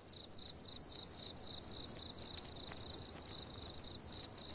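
Insect chirping, cricket-like: a steady, quick run of high-pitched chirps, about five a second, over faint field ambience.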